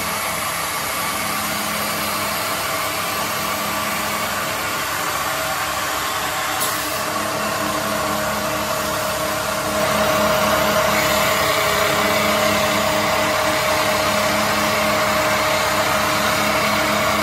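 Small CNC woodturning lathe running: a steady motor whine over machining noise, with a brief click about six and a half seconds in, growing louder about ten seconds in.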